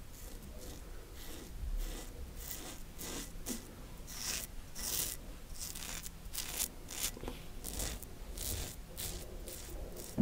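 TATARA Masamune safety razor scraping through stubble on a lathered jaw and neck, in a run of short strokes about two a second.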